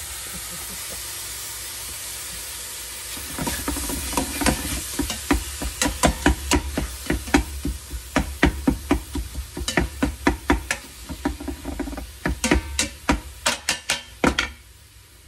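Ground pork sizzling as it browns in an Instant Pot on sauté. About three seconds in, a meat chopper starts jabbing and scraping against the pot, a rapid run of sharp clicks, several a second, which stops shortly before the end.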